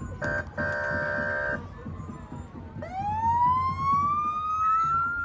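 An emergency vehicle's air horn blasts, briefly broken, for about a second and a half. About three seconds in, a siren starts low and winds slowly upward in pitch, still climbing at the end.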